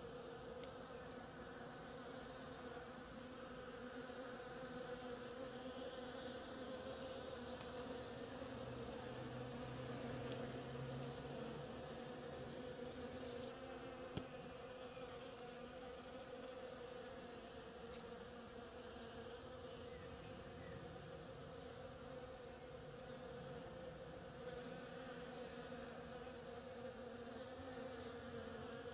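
Bees foraging among the flowers of a Boston ivy (oriental creeper) vine, buzzing in a steady, even hum, with one short tick about halfway through.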